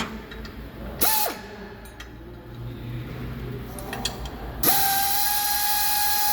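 Pneumatic air tool, such as an air ratchet, with a short whine that spins up and stops about a second in. After some light clicking, it starts again near the end and runs steadily, its whine over a hiss of air.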